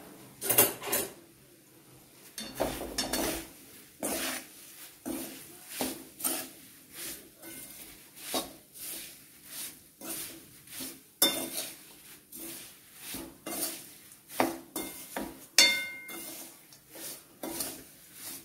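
Metal spoon scraping and knocking against a metal kadai while tossing dry thin poha flakes, about one or two strokes a second. A sharper knock near the end gives a short metallic ring.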